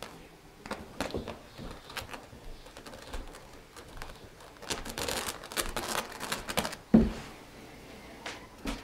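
Kitten's claws hooking into and pulling out of looped carpet as it climbs, a run of scratchy clicks that thickens into quick scrambling. A single thump about seven seconds in as it hauls itself over the top.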